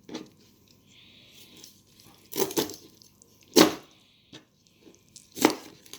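A knife cutting up a raw whole fryer chicken on a cutting board: soft slicing and tearing of the meat, broken by three sharp knocks, the loudest in the middle.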